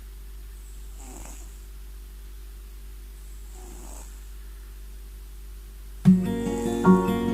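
A cat snoring softly, two slow breaths about two and a half seconds apart. About six seconds in, much louder acoustic guitar music starts.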